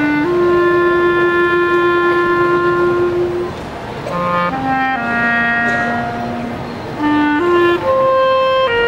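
Concert wind band playing a slow, lyrical passage in long held notes, with the clarinets to the fore. The music softens about four seconds in, then the melody moves on in shorter notes before settling on held notes again.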